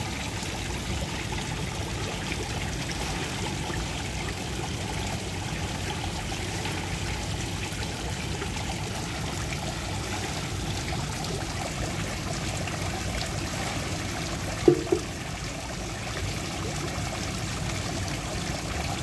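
Steady trickle of running water in a koi pond. A short double thump about three-quarters of the way through is the loudest moment.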